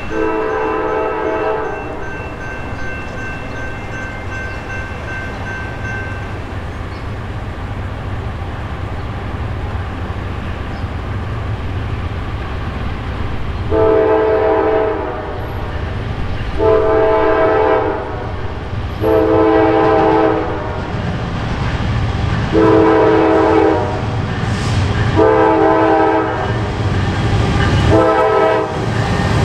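Air horn of a Norfolk Southern GE Dash 9-44CW freight locomotive, a chord of several notes: one blast at the start, then six blasts of about a second and a half each from about halfway through, the last one shorter. Under it the low rumble of the approaching diesel train grows louder.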